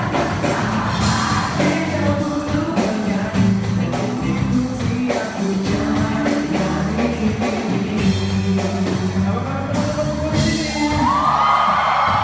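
Live band performing a song with a singer and a steady drum beat. Near the end a long held high note rises above the band.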